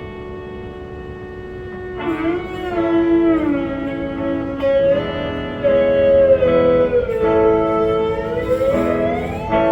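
Electric guitar played through an amplifier: a held chord fading for about two seconds, then long sustained notes that bend slowly down and up in pitch, with a rising glide near the end.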